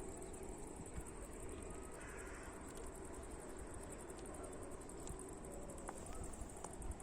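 Insects chirring steadily in a high, rapidly pulsing trill, over a low background rumble.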